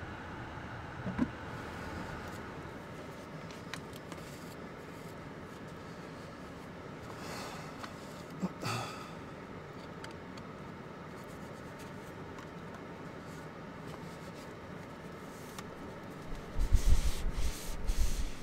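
Steady low background inside a parked car, with soft clicks and rubbing as a camera is handled. Near the end, loud irregular low rumbling starts.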